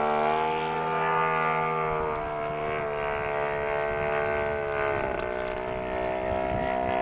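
Radio-controlled model airplane's engine droning overhead with a steady buzzing note, its pitch wavering and dipping briefly about five seconds in.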